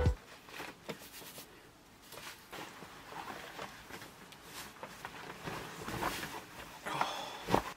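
Faint scattered rustles and light clicks, with a sharper click near the end.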